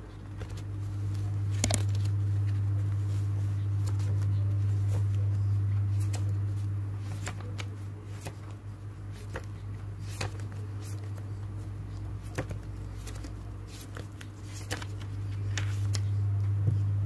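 Paper journal pages and sticky notes being handled and turned, with scattered light rustles and taps, over a steady low hum.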